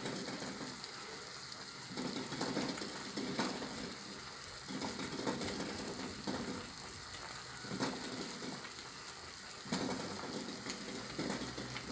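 Pots boiling hard on a stove: eggs boiling in a saucepan of water and a plantain-and-sausage stew bubbling. A steady bubbling hiss that swells and fades every second or two.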